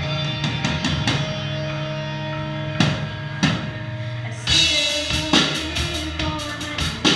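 Live rock music from an electric guitar and a drum kit: held, ringing guitar chords with a few single drum hits, then the full kit with cymbals comes in about four and a half seconds in.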